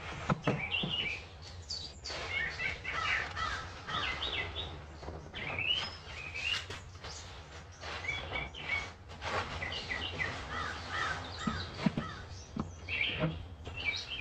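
A lively chorus of wild birds chirping and calling, many short overlapping calls throughout, with scattered short sharp knocks or splashes among them.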